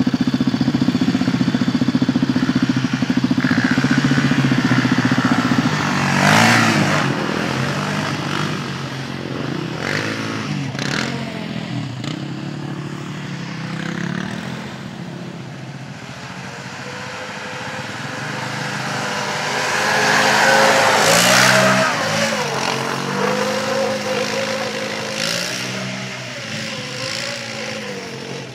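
Yamaha Raptor 700 quad's single-cylinder four-stroke engine revving up and down over and over as it is ridden on snow, loudest twice, about six seconds in and again about twenty-one seconds in.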